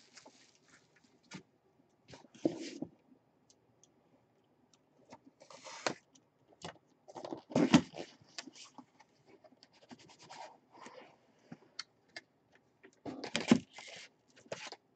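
A cardboard jersey box being handled and opened: intermittent scraping and sliding of the box and its lid, with scattered taps and rustles. The louder bursts come about halfway through and again near the end, as the lid comes off.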